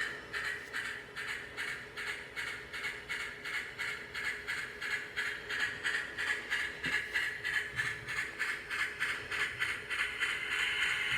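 DCC sound decoder in an Athearn HO-scale model of Union Pacific Challenger steam locomotive 3985, playing steady exhaust chuffs at about three to four a second through the model's small speaker. The sound grows louder and hissier near the end.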